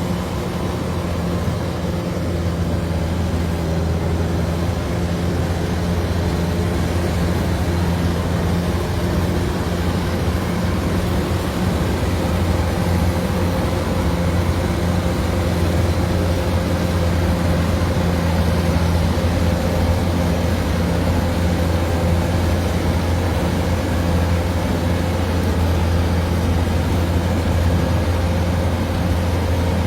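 Kubota DC-105 combine harvester's diesel engine and threshing machinery running steadily at working speed, a constant deep drone with a few steady tones above it.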